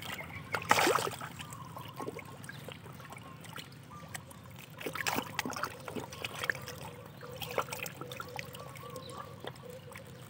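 Catfish thrashing and gulping at the water's surface in a crowded school: irregular splashes and slurping, the loudest splash about a second in and more clusters of splashing around the middle.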